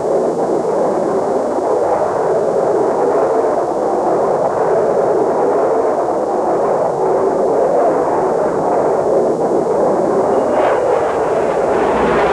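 Steady roar of a jet fighter in flight, engine and rushing air heard as from aboard the aircraft, an F-4 Phantom.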